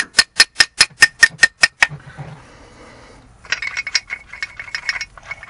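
Quick, evenly spaced metallic clicks, about five a second, stop about two seconds in. After a short pause comes a light, rapid scratching as a tool brushes caked mud and loose dirt off a truck's rear brake caliper.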